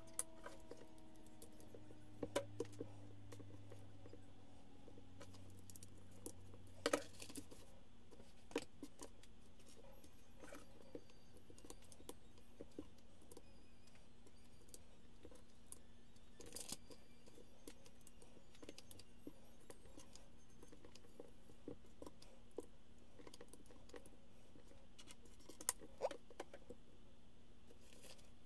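Plastic Lego pieces clicking and tapping as they are picked off a wooden table and pressed onto the model: sparse light clicks, with a few sharper snaps scattered through.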